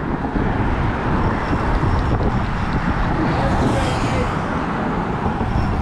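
Steady noise of road traffic passing on the bridge.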